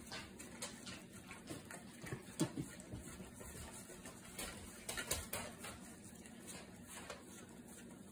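A dog licking a plate clean: irregular, faint short licks and ticks, a few louder ones about two and a half and five seconds in.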